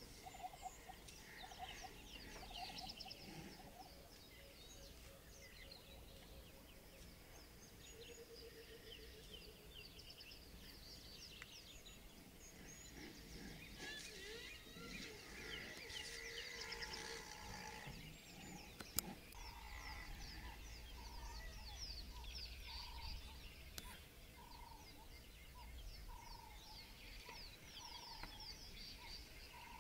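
Faint chorus of many wild birds calling at once, with fast chirps and trills overlapping. Through the second half a lower note repeats evenly, a little more than once a second. A single sharp click about two-thirds of the way through.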